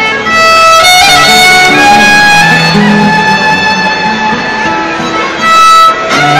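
Amplified violin and guitar playing an instrumental tune live, the violin carrying the melody in long held notes over the guitar's lower notes.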